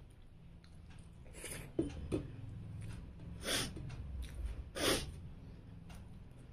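A person eating by hand makes three short, sharp sniffs through the nose, about a second and a half apart, with a couple of soft clicks in between.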